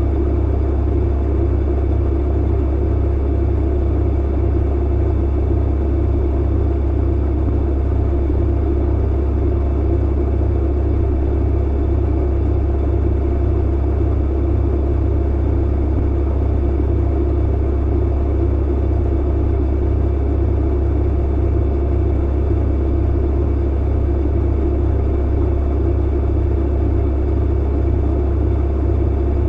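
Tumble clothes dryer running steadily: a deep, even hum with a lighter whir above it, unchanging throughout.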